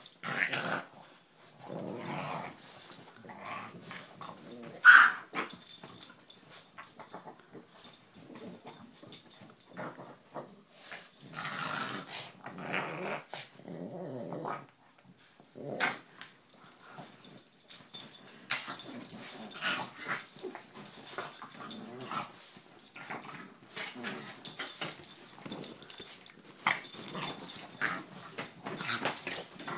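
Two dogs play-fighting over a rope toy: on-and-off play growls with scuffling on a bedspread, and one sharp yip about five seconds in.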